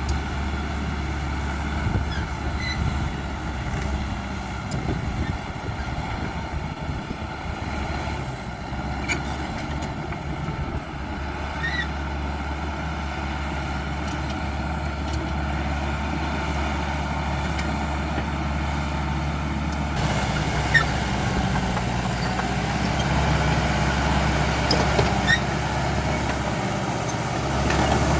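CAT D5K XL crawler bulldozer's diesel engine running steadily, with scattered short clinks over it.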